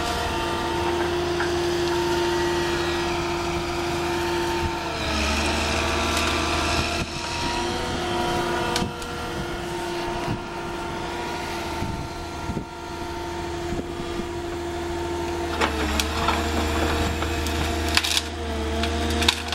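Excavator diesel engine and hydraulics running under load as a LumberJack 450 shear gripper works a tree. The machine's pitch dips briefly about five seconds in and again near the end, and wood cracks and splinters repeatedly in the last few seconds.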